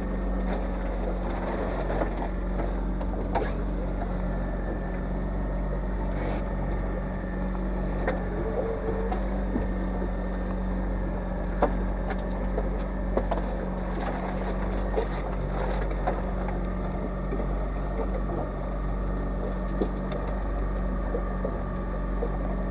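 Boat engine running steadily with a constant low hum, and a few light knocks scattered through it.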